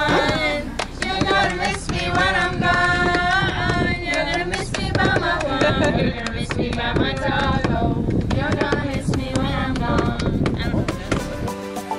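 Background music: a song with a wavering, ornamented singing voice over busy hand-drum percussion. Just before the end the voice drops out and steadier held notes take over.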